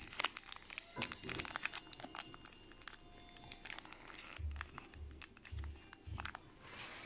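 Foil wrapper of a Magic: The Gathering booster pack crinkling and crackling as it is handled and opened by hand.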